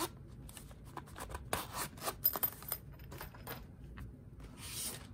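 Handling noise from lock-pick cases: scattered light clicks and taps, with two short rustling slides, about one and a half seconds in and near the end, as a zippered fabric pick case is lifted away and another case is brought onto a cloth mat.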